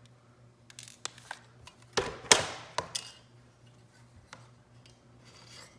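Small hard plastic and metal parts of a graphing calculator being handled during disassembly: a few light clicks, then two sharp clacks with a brief ring and a smaller clack a moment later, and a faint scrape near the end.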